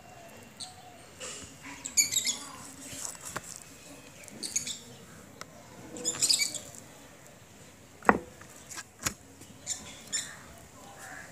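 A small bird chirping in short high bursts every couple of seconds. Two sharp knocks about a second apart near the end are the loudest sounds.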